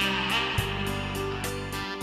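Tenor saxophone holding one long melody note over a backing track of guitar, bass and a steady beat.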